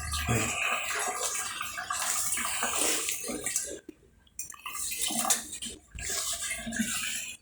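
Water splashing and gushing out of a Sharp top-load washing machine's tub as it is emptied, in uneven spurts that break off briefly about four and six seconds in.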